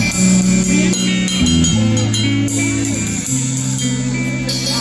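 Live band music at a sound check: guitar playing over low held bass notes that move to a new pitch every second or so.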